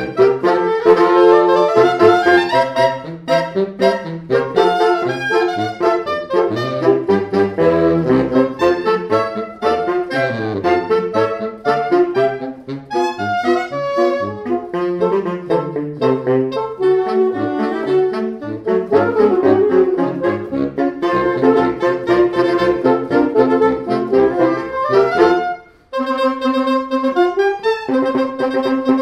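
Saxophone ensemble of soprano, alto, tenor and baritone saxophones playing fast passages together in harmony, with a brief break near the end before held chords resume.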